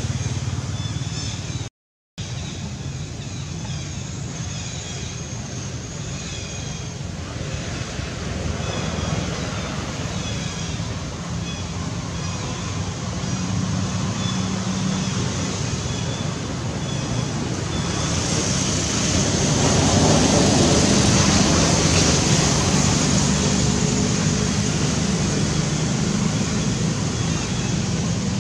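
Outdoor background noise: a steady low rumble, joined about eighteen seconds in by a louder high hiss. The sound drops out for a moment about two seconds in.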